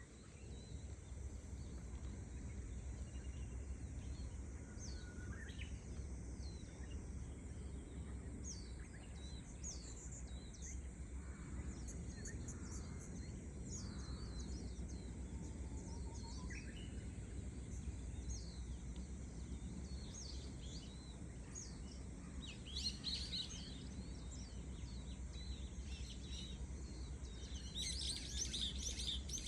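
Small birds chirping and calling again and again over a steady low rumble of waves, with a steady high cicada drone beneath. The chirping grows busier twice, about two-thirds of the way in and near the end.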